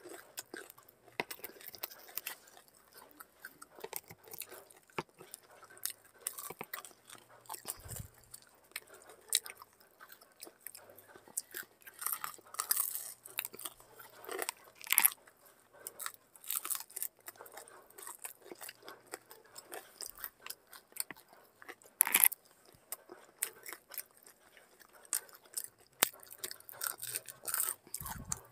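Samosas being bitten and chewed up close, the fried pastry crunching in irregular crisp crackles, with a few louder crunches.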